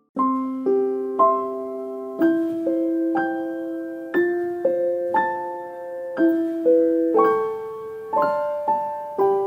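A slow lullaby melody on piano or electric piano, single notes struck about one to two a second, each ringing and fading.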